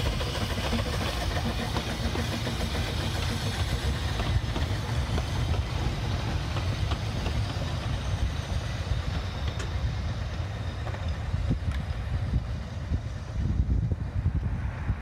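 Small Hunslet narrow-gauge steam locomotive running past at low speed, followed by its train of coaches rolling by with a steady rumble and a few wheel clicks over the rail joints. The hiss of the engine fades as the train draws away.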